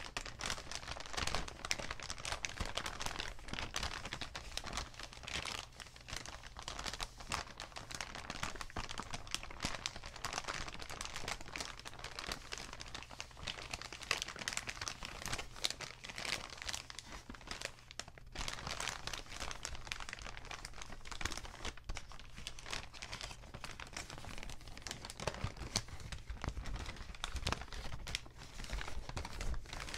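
Paper bags being crinkled and crumpled, a dense, continuous run of crackles with a brief lull about two-thirds of the way through.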